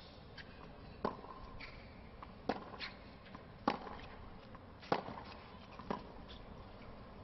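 Tennis rally on a hard court: sharp racket hits on the ball, five of them, about one every 1.2 s.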